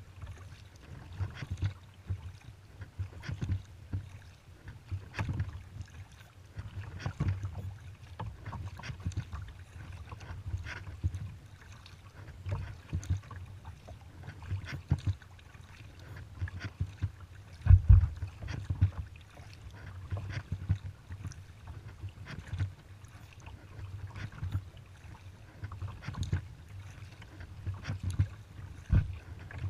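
Kayak paddling: the paddle blades dip and splash into the water in a steady rhythm of about one stroke a second, over a low rumble. One louder knock comes about two thirds of the way through.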